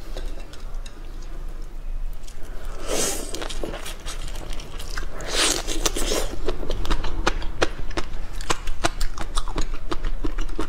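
Close-miked eating sounds of soy-sauce-marinated shrimp: many small sharp clicks and crackles as the shells are pulled apart by hand, with two longer slurps at the shrimp about three and five and a half seconds in.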